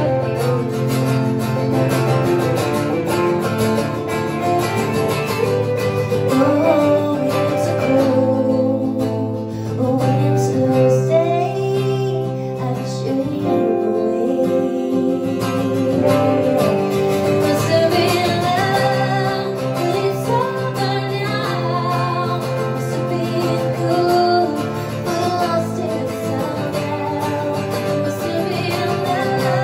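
Live acoustic music: two acoustic guitars played together while a woman sings a slow ballad.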